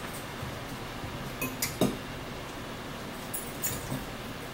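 Forks clinking and scraping against a plate and a salad bowl as two people eat. There are a few short sharp clinks about one and a half to two seconds in, and more a little before the end.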